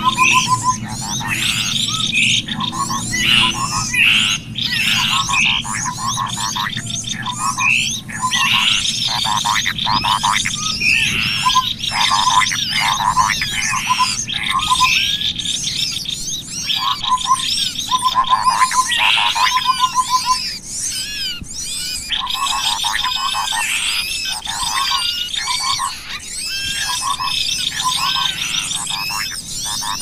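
Bird-trapping lure call of cucak kopi and other small forest birds: many overlapping chirps and trills, with a lower rapid stuttering note repeated every second or two beneath them.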